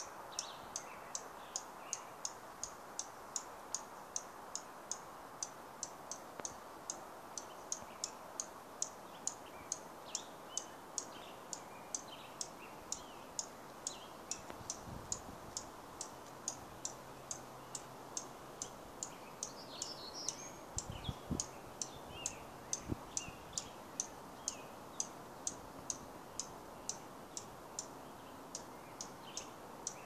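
Oregon junco (a dark-eyed junco) giving sharp, high tick-like chip notes in a steady series, about two to three a second, with softer chirps scattered among them.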